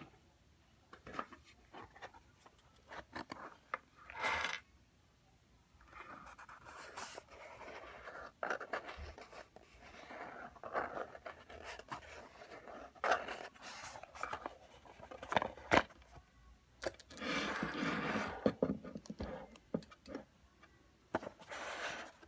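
Fingernails tapping, scratching and rubbing on a gift box and small items, in irregular clicks and scrapes, with a longer, louder scraping rub about three-quarters of the way in.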